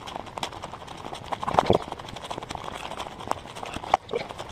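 Footsteps walking through undergrowth: an uneven run of rustles and short clicks, louder about a second and a half in, with one sharp click near the end.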